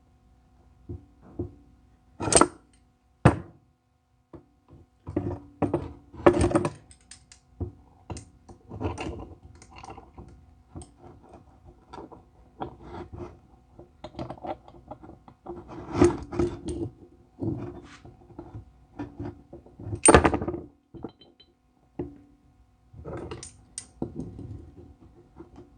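Tools and metal parts being handled during a repair: irregular knocks, clanks and rattles. The loudest come about two seconds in and about twenty seconds in, over a faint steady hum.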